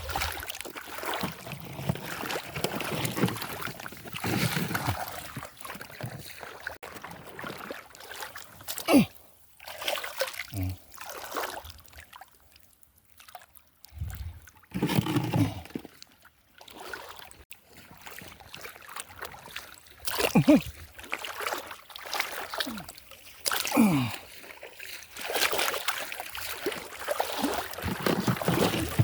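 Water splashing and sloshing in irregular bursts, with a few short low sounds falling in pitch.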